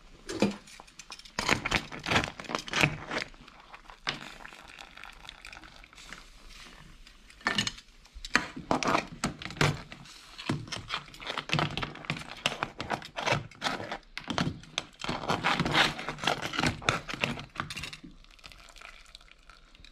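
Metal kitchen tongs clicking and knocking against a stainless-steel saucepan and the hard shells of boiled brown crabs as they are gripped and lifted out of the water, in irregular bursts with a quieter pause a few seconds in.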